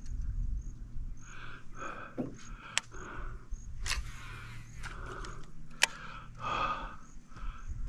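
Birds in the mangroves calling, a short call repeated over and over, over a steady low hum from the boat's electric trolling motor; three sharp clicks stand out about three, four and six seconds in.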